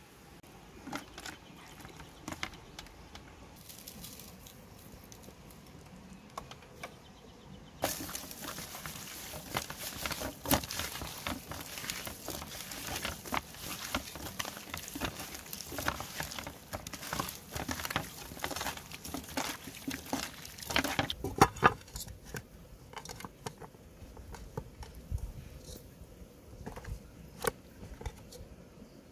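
Hands rubbing and kneading skinned raw frogs on a woven bamboo tray: a dense run of wet squelching, crackling and small clicks, followed by sparser, lighter taps.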